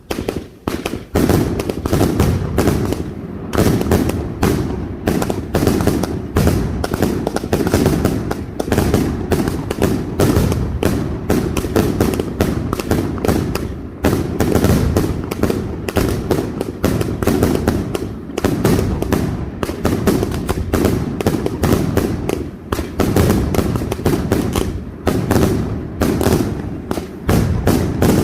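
Castillo aerial fireworks display: a dense, continuous barrage of exploding shells, many bangs a second overlapping into a rolling rumble.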